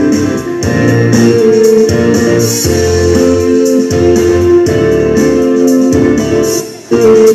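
Recorded background music led by a keyboard, with a steady beat.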